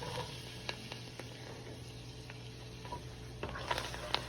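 Curry sizzling in hot oil in a pot as it is toasted ('burned') for curry oxtail, with fresh thyme just added. It makes a steady sizzle with scattered light clicks, and a few sharper clicks near the end.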